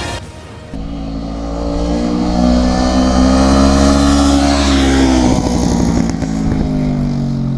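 Honda CBR motorcycle engine through an exhaust fitted with a drilled, cut-down dB killer. The engine note comes in about a second in, climbs in pitch for a few seconds, then falls away.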